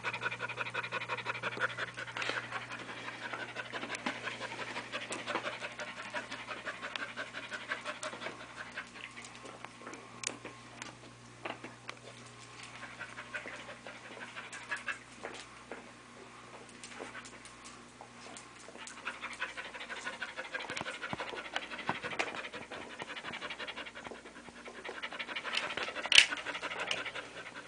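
Airedale terrier panting close up: quick rhythmic breaths that come in bouts, heaviest at the start and again through the last several seconds. Scattered light clicks run under it, and one sharp click comes near the end.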